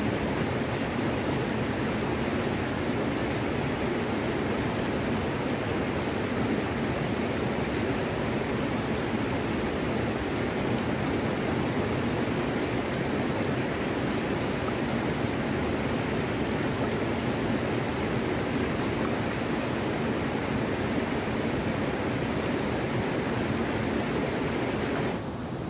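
River rapids rushing over rocks in a steady, even roar of white water. The sound drops abruptly about a second before the end.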